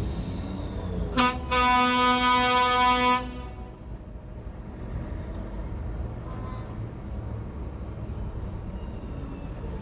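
Truck air horn: a short toot about a second in, then one long steady blast of about two seconds. Afterwards the low rumble of heavy trucks driving past continues.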